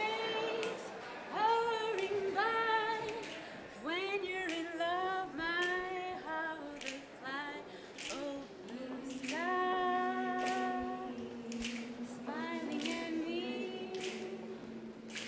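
A woman singing unaccompanied, with sharp clicks scattered across the song and a long low note held underneath from about the middle on, as if other voices join in.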